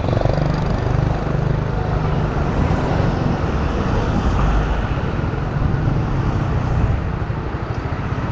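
Honda Beat FI scooter engine running steadily, a little louder from the start.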